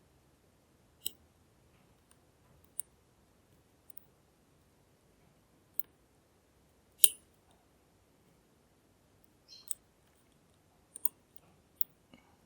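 Lock picking on a NEMEF NF4 dimple lock cylinder: metal pick and tension tool giving scattered sharp clicks, about eight of them at uneven intervals, the loudest about seven seconds in.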